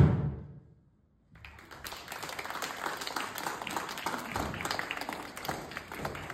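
The last stroke of large Tongan skin drums rings out and fades, and after a brief gap a group of children starts clapping and keeps applauding.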